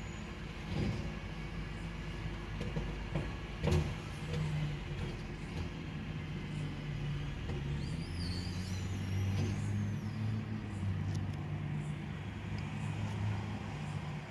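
Rear-loader garbage truck's engine running while its hydraulic packer blade cycles through the hopper, compacting bagged rubbish. The engine note grows stronger for a few seconds past the middle, and there is a sharp metallic clank about four seconds in.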